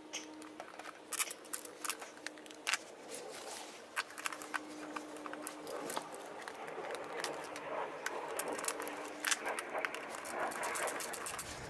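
Light clicks and scraping of a hand tool and small metal parts on a lawnmower carburetor's throttle linkage, with a denser rustling from about halfway through.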